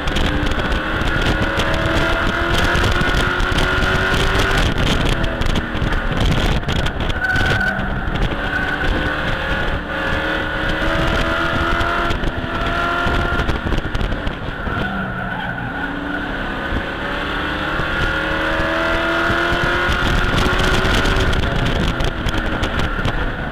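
A Pro Trucks race truck's engine heard from inside its cockpit at racing speed: it climbs in pitch for several seconds and drops back, about four times, over a loud rushing noise.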